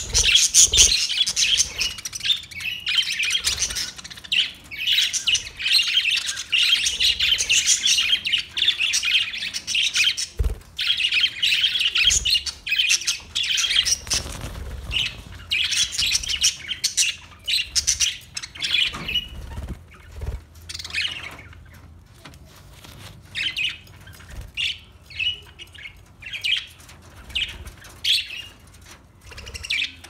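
A flock of budgerigars chattering and chirping, many birds calling at once in a dense warbling twitter; after about twenty seconds it thins to scattered separate chirps.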